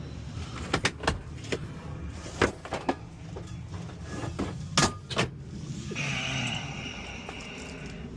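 Several sharp knocks and clicks over a steady low hum, then a short hiss lasting about a second and a half, about six seconds in.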